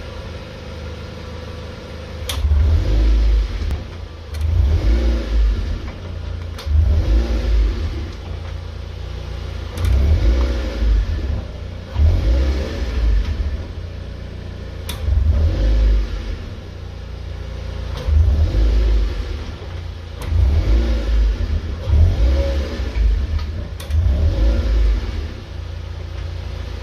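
Mazda MX-5 NC running, its low rumble swelling and easing about every two seconds, with sharp clicks a dozen or so times from the rear driveline, which the owner suspects are the drive shafts.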